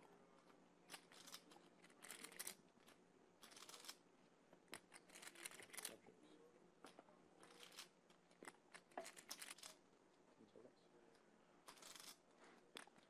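Faint clicking and clattering of clay poker chips being handled and riffled at the table, in short clusters every second or two.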